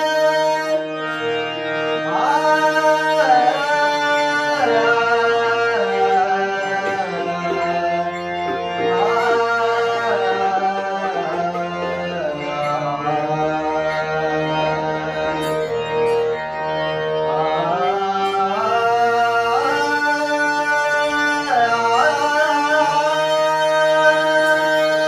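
A devotional bhajan: a male voice sings long, winding melodic phrases over the sustained, droning chords of a harmonium, with light hand-drum accompaniment.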